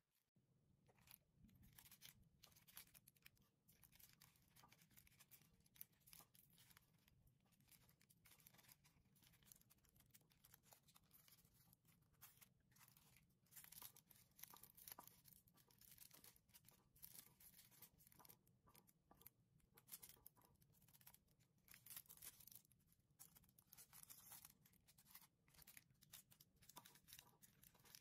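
Faint, dense crackling and rustling of granulated sugar as a dough-wrapped foil cone is rolled and pressed in a bowl of sugar.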